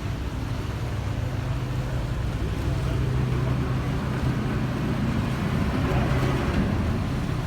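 Tour boat's engine running with a steady low hum.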